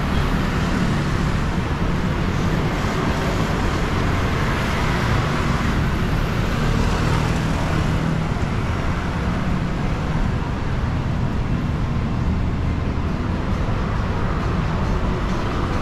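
Steady city road traffic noise, cars and other vehicles running past in a continuous wash without any single standout event.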